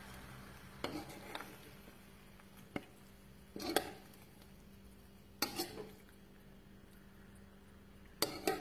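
Metal spoon clinking and scraping against a non-stick pan and a ceramic plate as pasta is served out: a handful of short, separate knocks and scrapes, the loudest cluster near the end.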